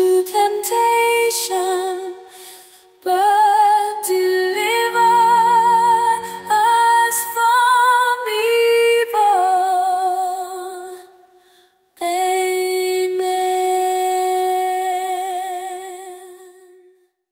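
A solo female voice singing a slow devotional melody with wide vibrato, in phrases with short breaks. The last phrase ends on a long held note of about five seconds that fades away.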